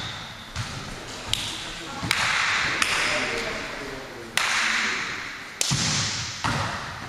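Volleyball being struck and bounced on a gym floor: a series of sharp slaps, about six, each ringing on in the hall's echo.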